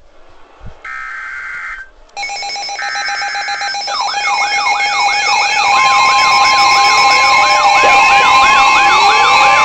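Emergency alert tones: a short screeching data burst about a second in, then a stack of alarm tones with sirens wailing up and down about twice a second over steady beeping tones, getting louder.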